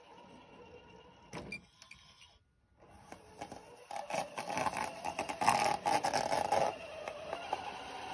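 Cen Racing F-450 RC truck plowing snow: a faint steady whine from its electric motor, then from about four seconds in a few seconds of irregular crunching and scraping as it pushes snow.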